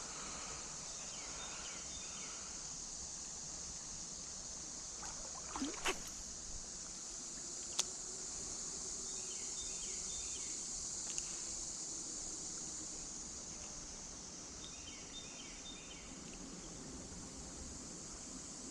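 Creek water running with a steady hiss. A short, high chirping phrase comes three times, about six seconds apart, and there are a few sharp clicks about six and eight seconds in.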